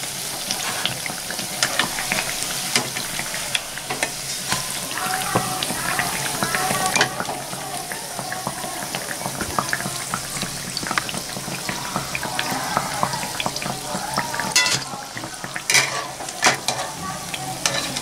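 Banana malpua deep-frying in hot oil, a steady sizzle, while a wire-mesh skimmer scoops them out and clicks against the pan. There are a few sharper clinks near the end.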